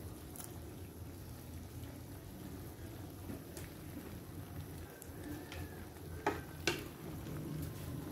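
A pan of ginataang papaya (papaya in coconut milk) cooking on the stove with a steady low noise. Two sharp knocks come in quick succession a little past six seconds in.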